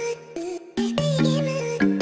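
Background music: a melodic instrumental track of pitched notes with sharp attacks over a steady beat.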